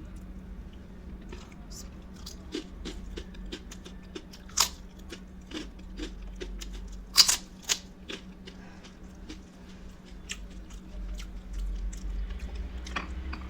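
Scattered sharp clicks and taps of dishes and utensils being handled as a meal of rice and curries is set out, the loudest about four and a half seconds in and again around seven seconds in, over a steady low hum.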